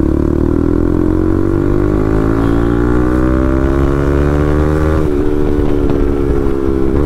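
Motorcycle with a full-system aftermarket exhaust accelerating. Its engine note rises steadily for about five seconds, then falls sharply and holds steady, with a brief dip near the end.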